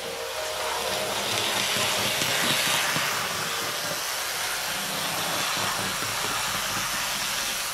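Märklin H0 model trains running on the layout: a steady rushing, rattling noise of wheels and motors on the track, loudest about two to three seconds in.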